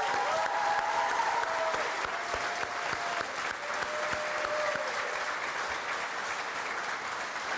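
Audience applauding, easing off slightly, with a few voices calling out over the clapping in roughly the first five seconds.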